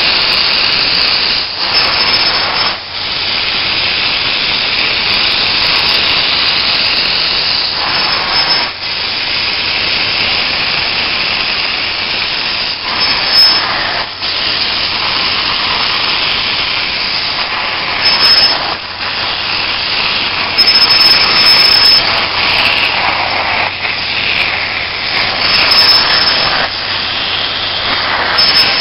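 Upholstery extraction wand of a truck-mounted steam cleaning unit, spraying rinse water into chair fabric and vacuuming it back out: a loud steady hiss and suction rush, broken by short dips every few seconds between strokes.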